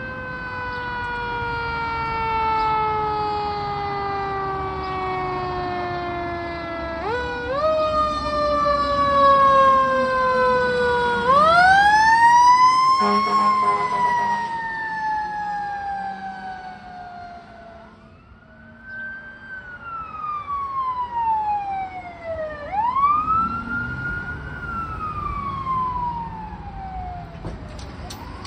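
Fire truck siren winding up quickly and then falling slowly in pitch, about five times over, loudest about halfway through, with the truck's engine and road noise beneath.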